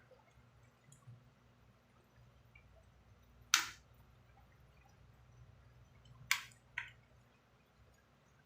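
Three sharp clinks of kitchenware: one about three and a half seconds in, then two close together a little past six seconds. A faint low hum runs underneath.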